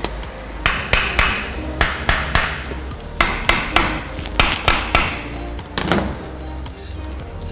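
A hammer tapping on the steel parts of a differential carrier while the ring-and-pinion backlash is being set: about a dozen sharp, ringing strikes in quick groups of two to four, with background music under them.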